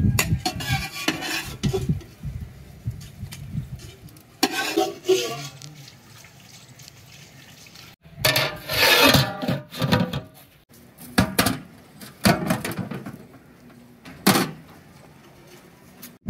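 Metal pots, plates and utensils clattering and clinking in several separate bouts, the loudest about nine seconds in.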